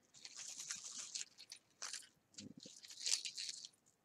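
Crinkling and rustling of a plastic bag and a paper earring card as costume jewelry is handled and sorted, with light irregular clicks. The crackle comes in uneven spurts and is loudest about three seconds in.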